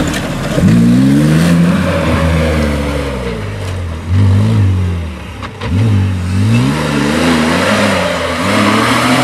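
Off-road rally 4x4's engine revving hard on a dirt course, its pitch rising and falling again and again as the throttle is worked, with brief drops about four and five and a half seconds in before it climbs again.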